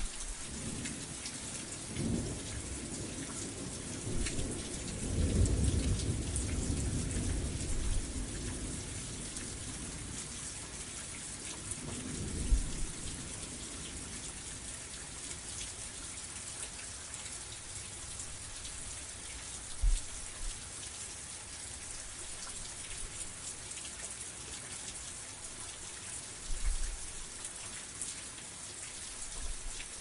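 Steady rain hissing down, with several low rumbles rising and fading, the longest from about four to eight seconds in.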